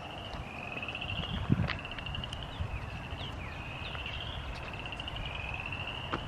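A chorus of frogs giving short, slightly rising pulsed trills, about one a second, with a few falling chirps among them. There is a low rumble underneath and a single knock about one and a half seconds in.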